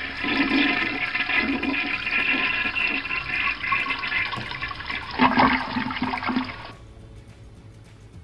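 A recorded toilet-flush sound effect for flushing the Sour Flush candy toy toilet: rushing, swirling water that sounds thin, as if through a small speaker. It swells louder about five seconds in and then stops abruptly near the end.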